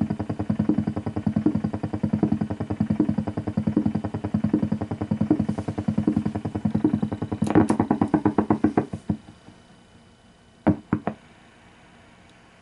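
Interference from a running turntable picked up by a vintage tube AM radio tuned to 600 and heard through its speaker: a rapid clicking buzz of about ten ticks a second that swells and fades roughly every three-quarters of a second. It dies away about nine seconds in, and a few sharp clicks follow.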